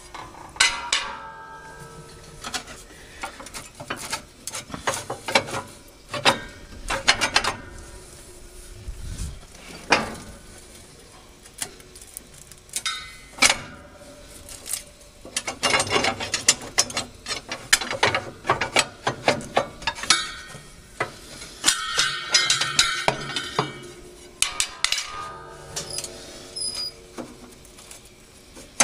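Steel cutting knives of a Claas Variant 380 RotoCut baler being worked loose and pulled out of their slots in the knife bank: irregular metal clanks, clinks and scrapes, some ringing briefly.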